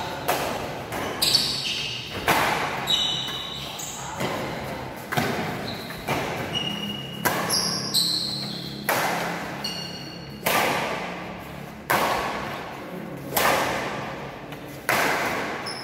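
Badminton rackets striking a shuttlecock back and forth in a fast doubles rally: sharp hits about once a second, each echoing in the hall. Short high squeaks of shoes on the court come between the hits.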